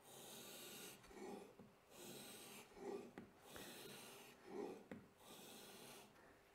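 Plane blade in a honing guide stroked across 40-micron abrasive lapping film wet with honing oil: about four faint rasping strokes, each just under a second. Short, lower-pitched sounds come between the strokes.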